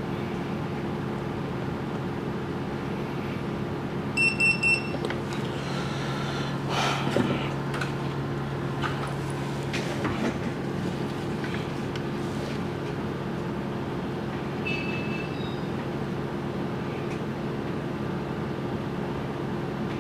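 Steady electrical hum of running repair-bench equipment, with several steady tones in it. About four seconds in come three quick, high electronic beeps, and a fainter set of beeps follows near the fifteen-second mark.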